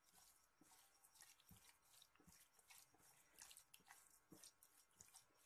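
Faint, wet squishing of a hand mixing raw chicken pieces through a sauce marinade in a glass bowl: many small, irregular squelches.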